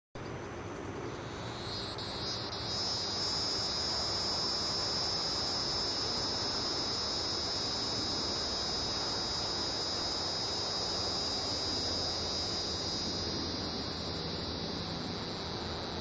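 Hieroglyphic cicada (Neocicada hieroglyphica) calling: a continuous high-pitched buzz that swells in over the first couple of seconds, holds steady, then begins to fade near the end.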